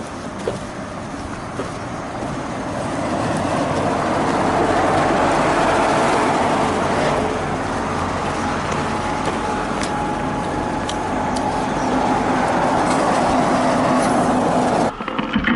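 Honda CB750K's inline-four engine running on the move, under a steady rushing noise of riding; it grows louder a few seconds in and cuts off suddenly near the end.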